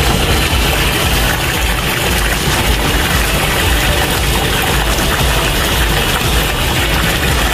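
Water running from a tap in a steady heavy stream into a large steam kettle, splashing onto the vegetables and chicken, over a low rumble.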